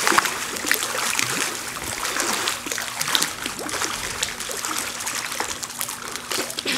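Water splashing and churning as a person thrashes about in a lake, with a constant rush of spray broken by many small sharp splashes.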